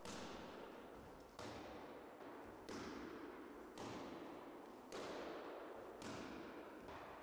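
Punches landing on focus mitts, about six strikes at roughly one a second, faint and each followed by an echoing tail.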